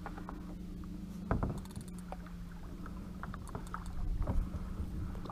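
Water sloshing against a plastic kayak hull, with scattered small knocks and clicks of fishing gear and a steady low hum. The sharpest knock comes about a second in and a few more near the end.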